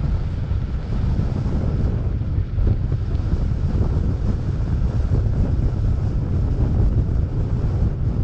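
Wind buffeting the microphone of a moving bike-mounted camera: a steady, loud, low rumble with no clear engine note.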